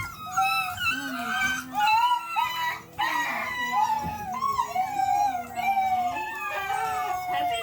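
Several young puppies whining and yelping at once: high, wavering cries that overlap throughout, ending in a long, slowly falling howl-like cry.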